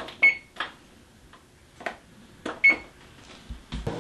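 Oven control-panel keypad beeping twice, a short high beep each time a button is pressed to set the bake temperature, with a few light knocks between.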